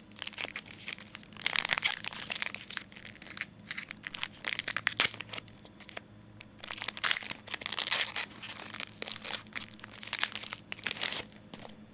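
A trading-card pack wrapper crinkling as it is handled and torn open, in several irregular rustling bursts.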